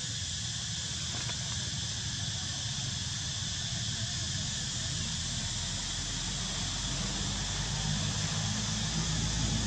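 Steady high-pitched insect chorus hissing, with a low rumble growing louder over the second half.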